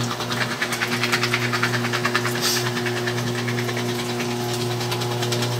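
Fellowes DM15C paper shredder's motor running with a steady hum while its cutters shred a sheet of paper with a rapid, even crackle. With its paper-full sensor bypassed, the shredder keeps running.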